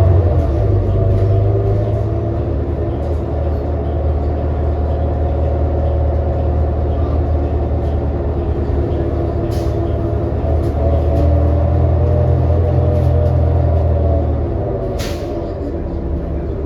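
Inside a New Flyer XD40 diesel transit bus under way: a steady drone of the engine and drivetrain with several held tones, a running sound the rider calls messed up. Two short hisses break in, one about ten seconds in and one near the end.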